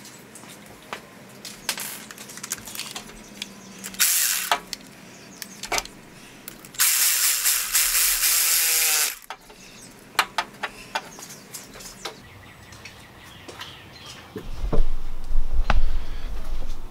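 Drill spinning a 3 1/4-inch hole saw through the car's sheet-metal inner fender apron. There is a short burst about four seconds in, then a longer cut of about two seconds that winds down in pitch as the drill stops. Scattered clicks and knocks and a low rumble near the end come with the work.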